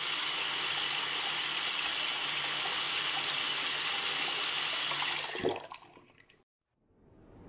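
Water from a chrome basin tap running in a steady stream into a ceramic sink, cutting off about five and a half seconds in.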